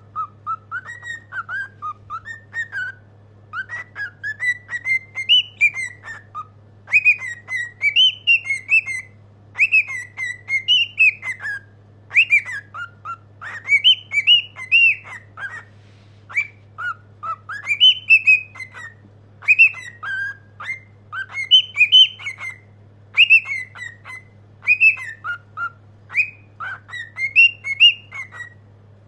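Cockatiel singing: a run of whistled phrases, each of rising and falling notes lasting a second or two, with short pauses between them, over a low steady hum.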